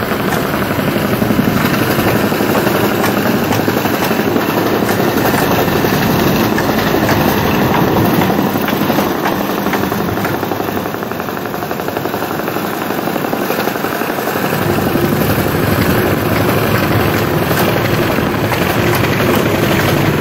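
Large crawler crane's diesel engine running steadily under load during a heavy lift, a dense pulsing rumble.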